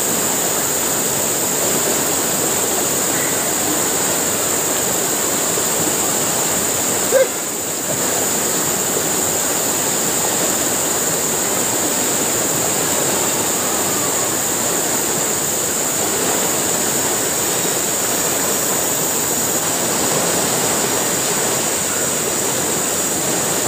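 Swift, shallow forest river rushing over rocks in a steady, even rush of water. A single short click about seven seconds in.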